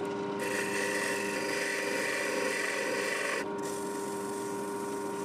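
Benchtop drill press running with a steady motor hum while sandpaper is held against the edge of a spinning wooden speaker-grill disc, a continuous rasping rub. The rubbing eases off about three and a half seconds in, leaving mostly the drill press hum.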